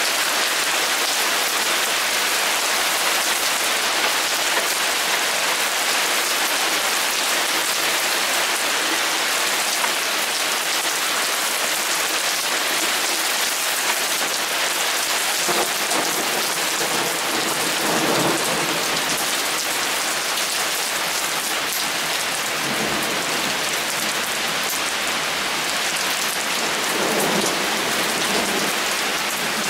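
Heavy rain pouring steadily, with thunder rumbling low a few times in the second half.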